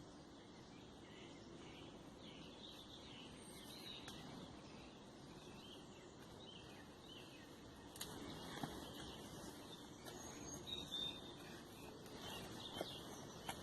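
Faint birdsong, short chirps and a couple of brief whistled notes, over a steady outdoor hiss, with a few small clicks and rustles from about eight seconds in.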